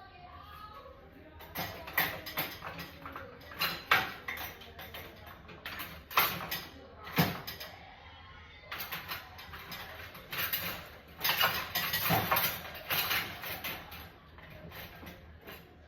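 Dishes and utensils clinking and clattering as they are loaded into a dishwasher: an irregular run of sharp knocks, busiest in the second half.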